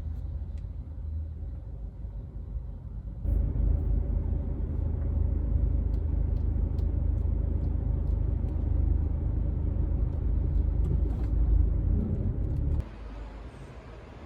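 Car driving: a steady low rumble of road and engine noise, louder from about three seconds in and dropping suddenly near the end.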